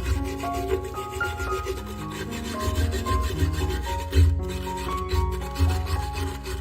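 Background music: a melody of short held notes stepping up and down over a pulsing bass, with a scratchy rubbing noise running through it.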